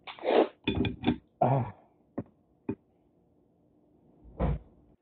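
Close-up eating sounds from picking, sucking and chewing meat out of crab legs: a quick run of wet, noisy slurps and crunches in the first two seconds, two sharp clicks, then one more near the end.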